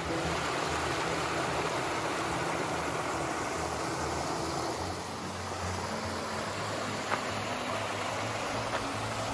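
A small creek waterfall rushing steadily over rock ledges into a pool.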